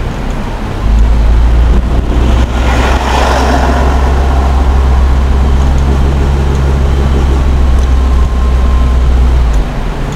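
Car driving, heard from inside the cabin: engine and road noise under a heavy low drone that sets in about a second in and drops away near the end. A brief swell of hissing noise comes about three seconds in.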